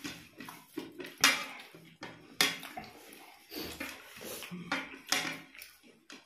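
Eating by hand: fingers mixing and scraping puffed rice with ghugni and beguni on ceramic plates, with a few sharp clinks against the plates and chewing. The loudest clink comes about a second in.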